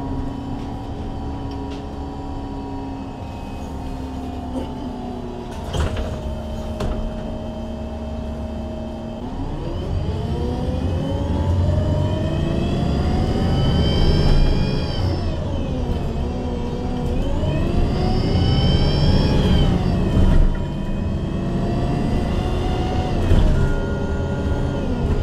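MAN Lion's City G NG313 CNG articulated bus heard from inside, its gas engine and Voith automatic gearbox running steadily at first, then pulling away with the pitch rising. The pitch dips at a gear change about halfway through and again a little later, each time rising again, with a faint high whine following the engine.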